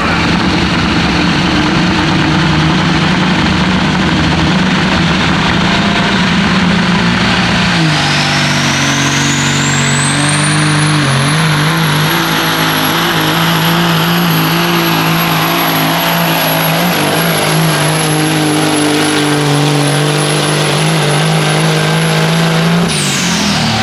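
Pulling semi truck's Caterpillar diesel engine running flat out under load while dragging a weight-transfer sled, with a high turbocharger whistle that rises about eight seconds in, holds, and falls away near the end as the throttle comes off.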